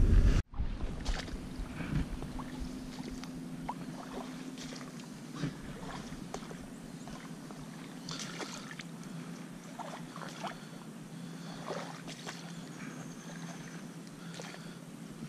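Quiet outdoor ambience with a faint steady low hum and scattered short, high ticks and calls, starting after an abrupt cut about half a second in.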